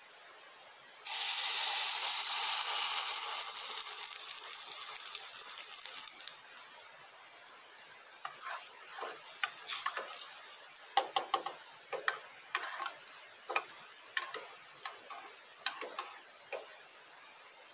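Liquid poured from an insulated bottle into a metal camp cup on a fire grill: a rush that starts suddenly about a second in and fades over about five seconds. Then a spoon stirs the cup, clinking against the metal in a run of sharp ticks.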